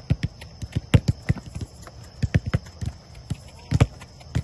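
Soccer balls being kicked and trapped, with footsteps, during a passing drill: a run of irregular dull thuds, the loudest about a second in and near the end.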